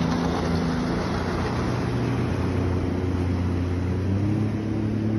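Seven Seas Hermes Speedster runabout's engine running under way as the boat passes and pulls away across the water, over a steady hiss of water and wind. Its note drops about a second in and rises again near four seconds.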